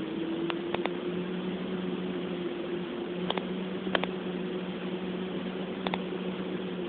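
2006 Ford F-150's 5.4-litre V8 idling steadily, with about five sharp, irregular ticks over the hum. This is the tick/clack that goes with the truck's rough, diesel-like running and camshaft-position codes, which the owner suspects comes from a faulty new VCT solenoid.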